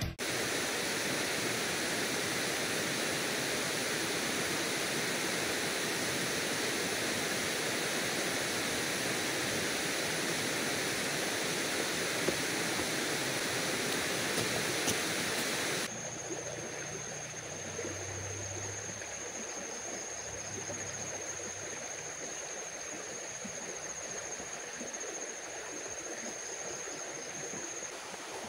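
Steady rushing of a river, a constant hiss of flowing water. About halfway through it drops suddenly to a quieter rush, with a thin, steady high-pitched tone over it.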